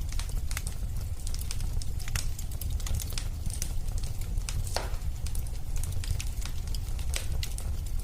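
Wood fire crackling: irregular sharp snaps and pops over a steady low rumble, with one louder pop about five seconds in.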